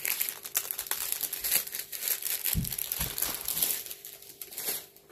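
Plastic packaging from a diamond painting kit crinkling as it is handled, with two soft thumps a little past the middle. The crinkling dies down near the end.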